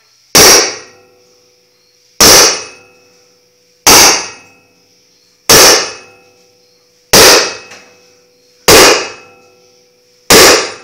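Sledgehammer striking a steel axle shaft stuck fast in a lawn mower wheel: seven evenly paced metallic clangs about a second and a half apart, each ringing briefly. The shaft is being driven out of the wheel.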